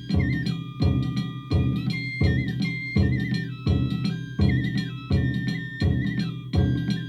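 Danjiri bayashi festival music: heavy taiko drum strokes about every 0.7 seconds under a high, ornamented flute melody, with ringing metallic tones above.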